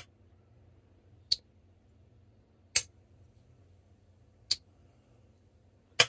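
Walk and talk of a QSP Penguin slipjoint pocket knife: the steel backspring snaps the sheepsfoot blade shut and open with five sharp clicks, about one every one and a half seconds. The crisp snap is the sign of an exceptionally strong backspring, rated an easy 7 pull, maybe 7.5.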